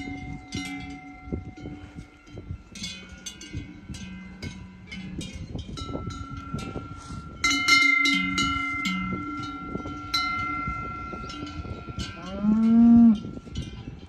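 Cowbells on cattle clanking and ringing irregularly, several bells at once, with one loud cow moo about twelve and a half seconds in.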